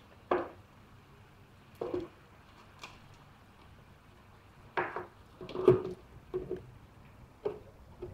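Hands handling plastic bottle parts on a work surface: about half a dozen short, irregular knocks and crinkles, the loudest a little under six seconds in.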